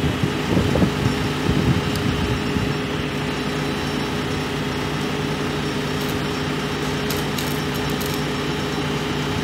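Truck-mounted crane's engine running steadily at idle, a constant even hum.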